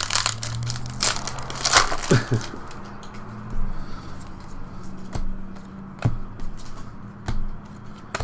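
Trading-card pack wrappers crinkling and cards being handled, with irregular sharp crackles and snaps.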